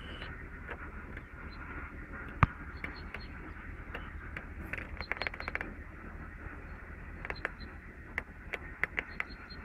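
Handling noise from a hand-held camera and fishing pole: scattered clicks and taps, with one sharp, louder knock about two and a half seconds in, over a steady low outdoor hiss.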